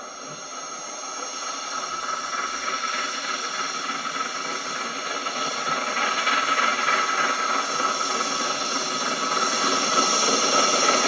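Steam locomotive hauling a passenger train as it approaches, its noise growing steadily louder, with a hiss and steady high-pitched tones over it, heard through a television speaker.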